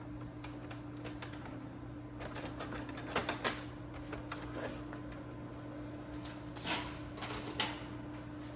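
Scattered clicks and knocks of plastic printer parts being handled and taken apart on an inkjet printer, over a steady low hum; the sharpest knocks come about three seconds in and again near the end.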